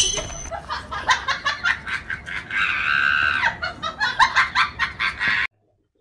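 A person laughing in quick, repeated bursts, with one longer, higher laugh in the middle; it cuts off suddenly about five and a half seconds in.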